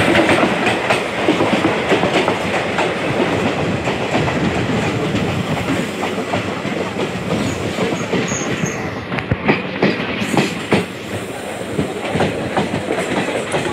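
Passenger train coaches passing close alongside, with a steady rushing noise and the wheels clattering over rail joints in irregular clicks.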